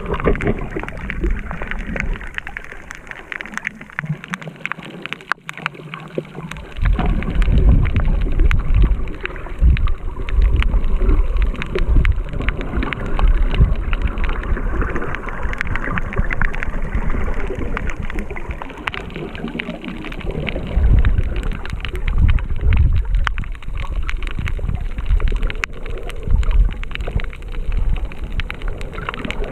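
Underwater sound picked up by an action camera in its waterproof housing: muffled water rush and low rumbling from movement through the water, with a dense crackle of small clicks throughout. The low rumbling grows much louder about seven seconds in.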